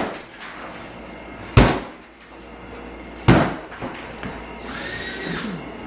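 Heavy blows against a wooden wall or built-in cabinet being knocked out in demolition, three hard thuds about a second and a half apart. A short high squeal follows near the end.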